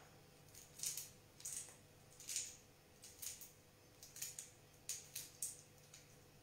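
Faint, irregular crackles of a raw tiger prawn's shell being peeled off by hand, about one or two a second, over a low steady hum.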